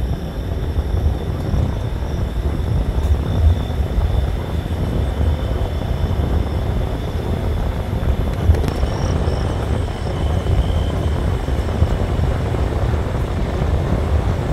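A car driving at low speed: a steady low rumble of engine and road noise.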